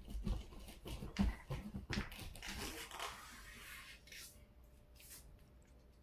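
A sheet of A4 paper being folded in half and creased flat by hand against a wooden floor: a few light knocks, then a rustling swipe about two seconds in, then quieter.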